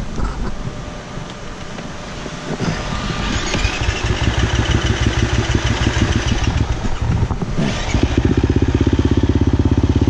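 Dirt bike engines running at low revs. About eight seconds in, a bike close by becomes much louder, with a steady, rapid thumping.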